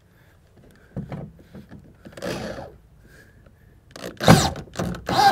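Scrapes and knocks of a screw on a corded drill's bit being worked into a bolt hole in a plastic-lined pickup bed, with a cluster of louder sharp clicks and knocks in the last second or so.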